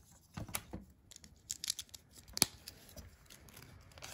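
Small plastic LEGO pieces being handled and pressed onto a build, giving scattered short clicks and light rustling, the sharpest click about two and a half seconds in.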